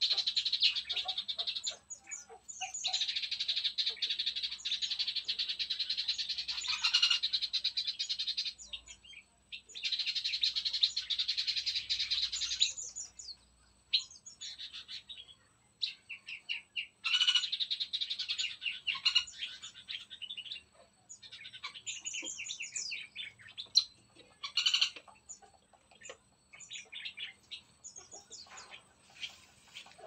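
Songbirds in an aviary singing and chirping in long runs of rapid high notes, several seconds each with short pauses between. The runs give way to scattered single chirps near the end.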